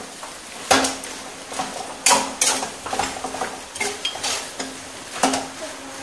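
A spoon scraping and clattering against a frying pan as chicken and its masala are stirred, with frying hissing underneath. The strokes come irregularly, the loudest about a second in, around two seconds in and about five seconds in.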